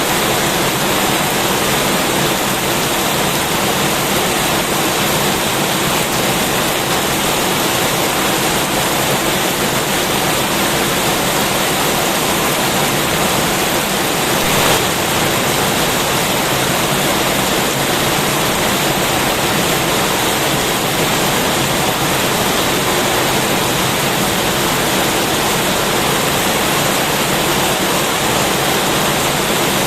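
Heavy rain falling in a dense, steady hiss, with one brief, slightly louder swell about halfway through.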